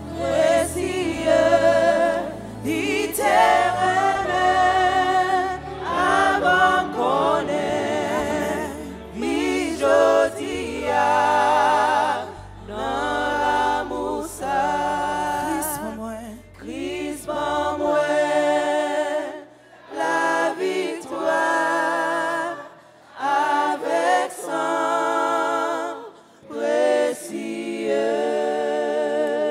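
Church worship team singing a gospel hymn into microphones, a woman's voice leading with others in harmony. A low bass underneath drops out about two-thirds of the way through.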